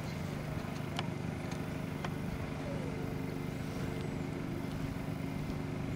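A steady low engine hum, with a couple of faint clicks about one and two seconds in.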